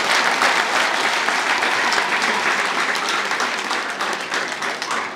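Crowd applauding, dense clapping that thins and fades near the end.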